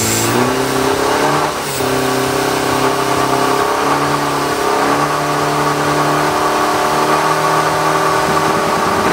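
Diesel pro street 4x4 truck engine revved and held at high revs, its pitch stepping up and down several times, with a steady hiss over the top.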